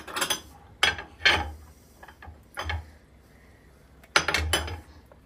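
A kitchen knife tapping and scraping on a hard cutting board and ceramic plates being set down: a handful of sharp clinks and taps, with a cluster about four seconds in.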